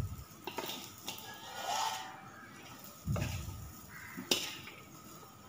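Metal spatula scraping and clinking against a wok while fried rice is stirred and turned, with a dull knock about three seconds in and a sharp clink a little after four seconds.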